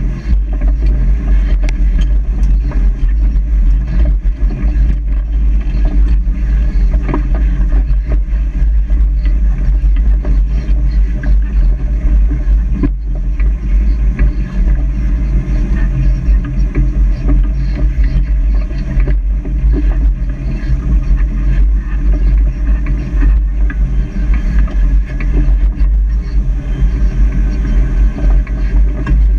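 Off-road vehicle's engine running steadily at low speed while crawling over a rocky trail, with a heavy low rumble and frequent short knocks and rattles from the tyres and body over the rocks.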